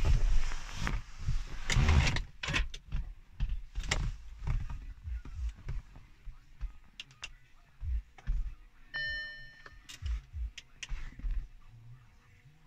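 Scattered clicks, knocks and low thumps from the camera being handled inside the Audi A5's cabin and its interior controls being worked, loudest in the first two seconds. A short electronic beep sounds once, about nine seconds in.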